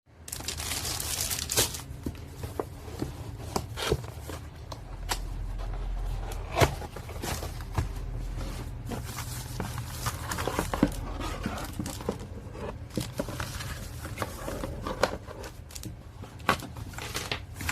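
Packaging being handled and unwrapped: crinkling and rustling with irregular clicks and knocks, over a steady low hum.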